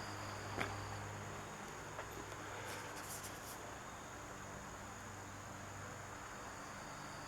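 Faint handling noises, a light click and some brief scratchy rustling, over a steady low electrical hum and a constant high-pitched whine.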